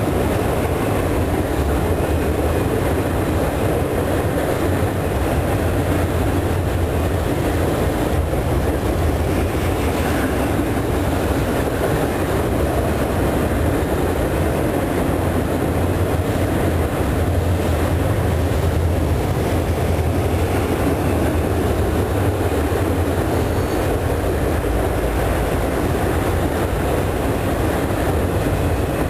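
Double-stack container freight train rolling across a steel railway viaduct: the cars and wheels make a steady, loud rumble.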